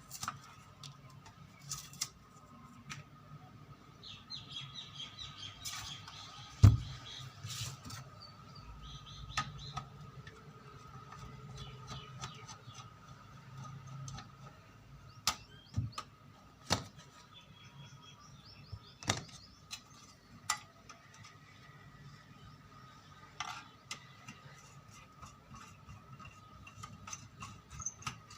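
Scattered clicks, scrapes and knocks of hand tools working on an electric iron as its back cover is taken off and its wire disconnected, with one sharp knock about six and a half seconds in. Faint high chirps come and go over a thin steady background hum.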